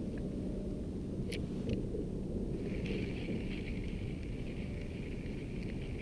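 A spinning reel being cranked on an ultralight rod, a steady fluttering whir that starts about three seconds in, over a low steady rumble. Two short clicks come about a second in.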